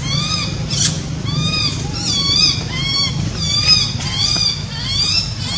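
Baby monkey crying: a continuous run of short, high, arched cries, two or three a second, over a low steady hum.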